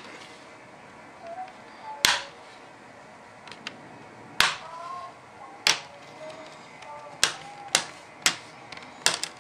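Sharp plastic snaps, about seven of them roughly a second apart, as the HP 2000 laptop's plastic screen bezel is pried off and its retaining clips pop loose one after another.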